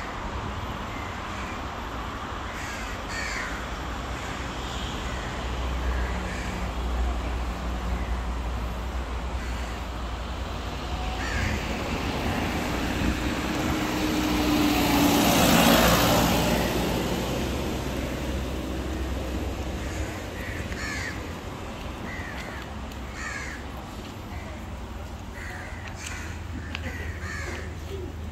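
Crows cawing repeatedly over steady street traffic, with a vehicle passing close by, loudest about halfway through.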